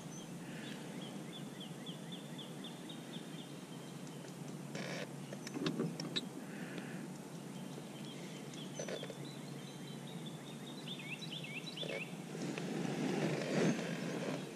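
Low steady hum of an electric trolling motor easing the boat along, with a few light knocks about five to six seconds in. Birds chirp in quick runs of short high notes in the background.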